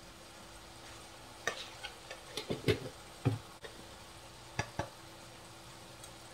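Keema mince frying softly in a non-stick frying pan, with a faint steady hum underneath. Over about three seconds in the middle comes a string of irregular light clicks and knocks from the metal spoon adding spice powder to the pan.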